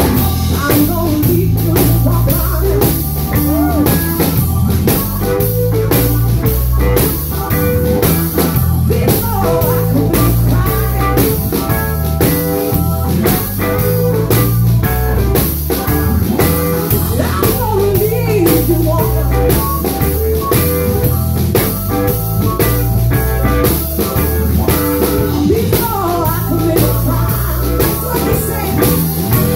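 Live blues band playing loud: electric bass and drum kit with steady cymbal hits keep a driving beat, with electric guitar lines over the top.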